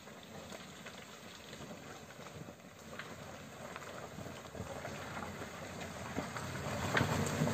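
Hyundai Venue SUV driving slowly through deep mud toward the listener, its engine and tyres churning the mud with scattered clicks and splatters. The sound grows steadily louder as it approaches, loudest near the end.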